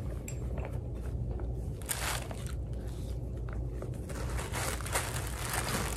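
Rustling and scraping of a black velvet pouch and packaging being handled while candle accessories are taken out: a run of irregular soft crinkles and scrapes, busiest about two seconds in and near the end.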